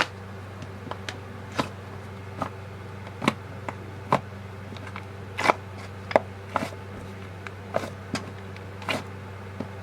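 Homemade slime, made from squishy foam, lotion and borax activator, being stretched and squished by hand, giving irregular sharp clicks and pops about once or twice a second over a steady low hum.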